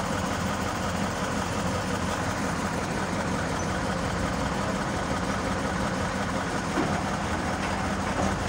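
Diesel engine of a Scania crane truck running steadily with a low drone, powering the loader crane as it lifts a load.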